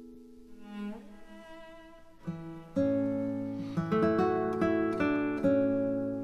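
Background music played on plucked strings, a tune of picked notes, soft at first and fuller and louder from about three seconds in.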